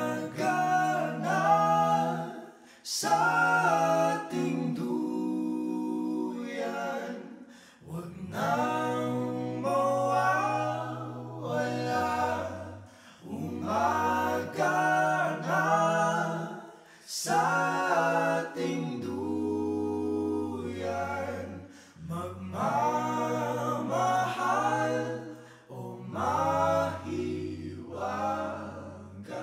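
Voices singing a slow song in harmony, phrase after phrase with short breaks about every four to five seconds.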